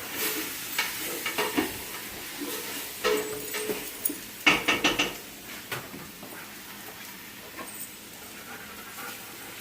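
Kitchen clatter: a utensil stirring and scraping in a pot of soup, with a few louder knocks about three and five seconds in, then quieter.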